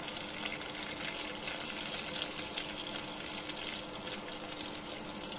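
Curry leaves, cumin and mustard seeds sizzling and crackling in hot oil in a nonstick pot. A steady, even hiss with small crackles runs through it, over a faint steady hum from the electric cooktop.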